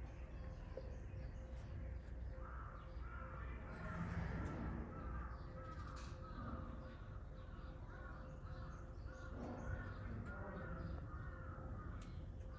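A long run of short, bird-like calls, many in a row, over a steady low hum.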